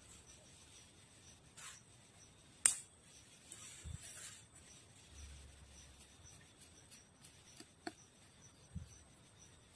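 Faint scraping and rubbing of hand tools working a small piece by hand, with scattered small clicks and one sharp, loud click between two and three seconds in.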